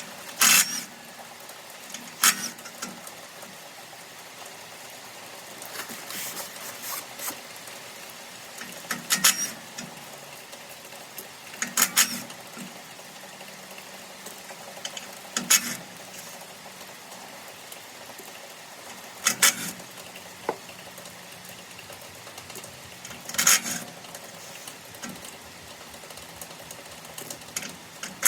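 Short sharp metal clinks and clicks every few seconds, some in quick clusters: hand tools working the bolts loose on a round baler's pickup guards.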